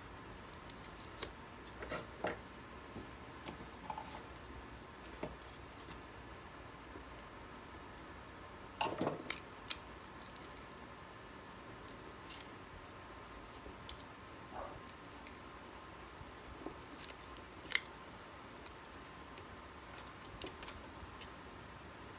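Scattered small clicks and rustles of hands handling a battery pack's wires and electrical tape, with a brief louder scrape about nine seconds in and a sharp click near eighteen seconds.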